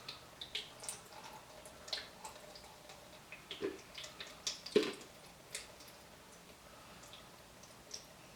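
Brake master cylinder and tools being handled on a workbench: scattered light clicks and clinks, with two duller knocks about three and a half and five seconds in.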